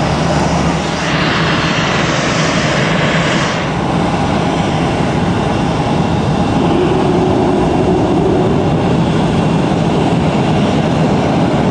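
Jet engines of two-seat F/A-18 fighter jets running loudly on the runway, a steady roar. A hissing high-pitched rise comes about a second in and lasts a couple of seconds.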